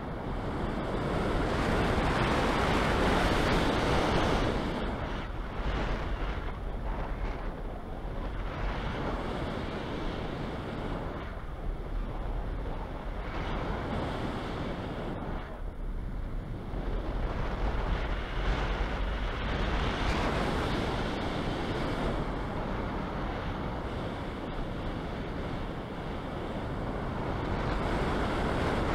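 Wind rushing over the microphone of a hang glider's wing-mounted camera in flight: a steady rush of airflow noise that swells and eases, louder about two to four seconds in and again near the end.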